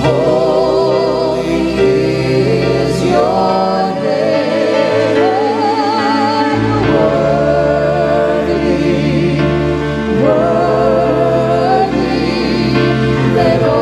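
Gospel worship song sung by several voices together into microphones, with vibrato on held notes, over a sustained instrumental accompaniment. The low accompaniment drops out for a couple of seconds a few seconds in, then returns.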